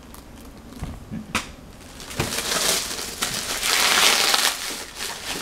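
Plastic bubble wrap crinkling as it is handled and pulled off a package. A few light clicks come first, then from about two seconds in the crinkling turns dense and loud.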